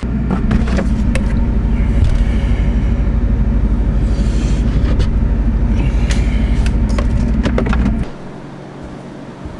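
Loud steady low mechanical hum with scattered clinks and rattles of things being handled; the hum cuts off abruptly about eight seconds in.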